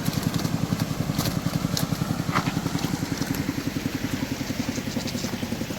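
A small engine idling steadily, a fast even low pulsing, with a few faint ticks over it.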